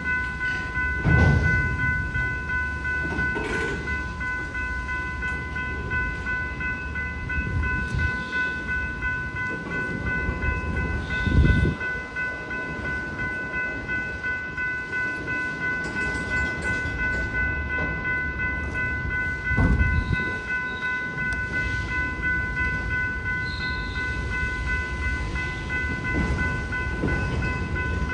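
Railroad crossing warning bell sounding as a steady ringing tone over the low rumble of a freight train at the crossing, with a few heavier thumps from the train.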